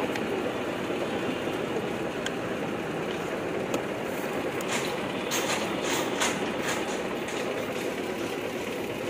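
Steady street traffic noise with a kitchen knife cutting on a wooden chopping board, a quick run of cuts about five to six seconds in.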